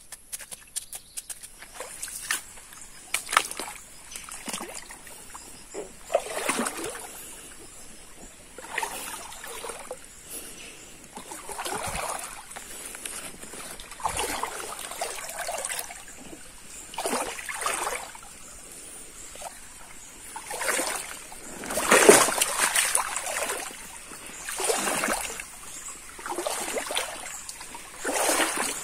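Water splashing and sloshing in a shallow stream as a person wades and swishes something through the water, in uneven bursts a second or two apart, the loudest about two-thirds of the way in, over a steady faint high hiss.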